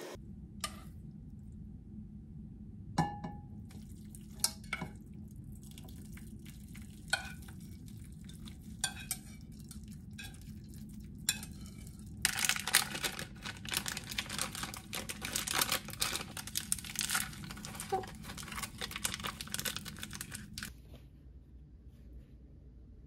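Dishes and utensils clinking: scattered single knocks and clinks, then about eight seconds of rapid, continuous clattering over a steady low hum, both stopping together near the end.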